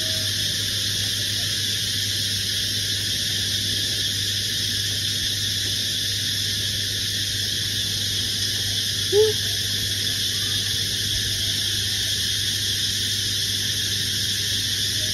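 A domestic cat gives a single short meow about nine seconds in, over a steady background of low hum and hiss.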